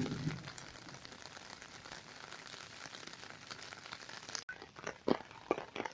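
Monsoon rain falling steadily: an even patter of many small drop ticks. A low rumble fades out at the very start, and a few sharper taps come about five seconds in.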